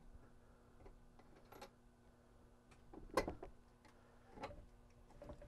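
Faint clicks and knocks of battery cable terminals being worked loose and lifted off a marine battery's posts, the loudest knock about three seconds in and another just after four, over a faint steady hum.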